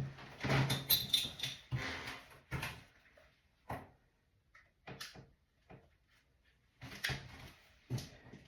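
Handling noises: a string of short rustles, clicks and knocks with quiet gaps between them, the loudest near the start and around a second in. No power tool is running.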